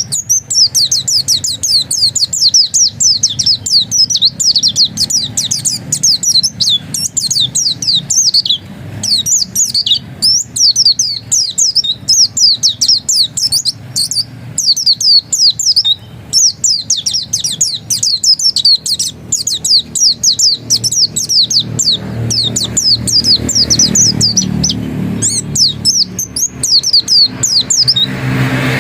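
Pleci dakun white-eye singing in the insistent 'ngotot' style: a fast, nearly unbroken string of high, sweeping chirps with only brief pauses. A low hum runs underneath and grows louder over the last few seconds.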